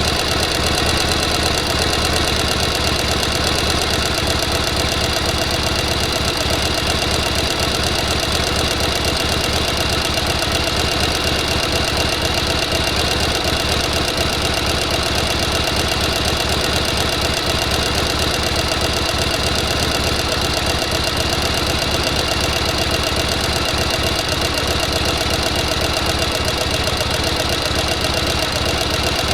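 Sewing machine running continuously at a steady speed, its needle stitching in a fast, even clatter.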